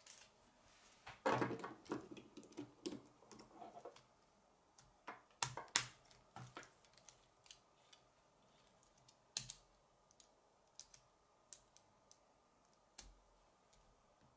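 Plastic K'nex pieces clicking and rattling as they are handled and snapped together: a dense clatter about a second in, then sharp snaps a little after five seconds and again near nine seconds, with lighter ticks between.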